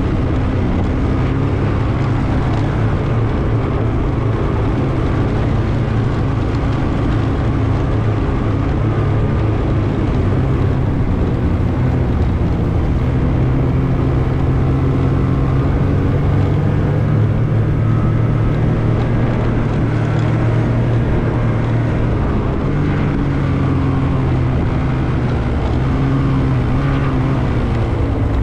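Snowmobile engine running continuously at a fairly steady speed, its pitch drifting slightly up and down.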